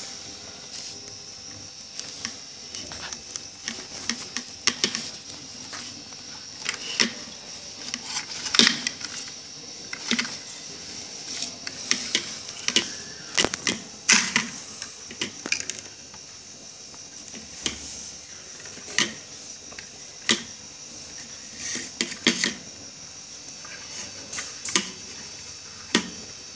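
Wires being handled and twisted by hand and fitted into a small wooden switch box: irregular small clicks, scrapes and rustles, busiest in the first half, over a steady high hiss.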